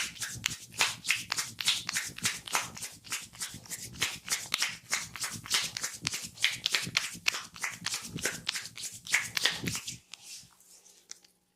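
Hands slapping and patting on skin in quick, rhythmic massage strokes, several a second, stopping about ten seconds in.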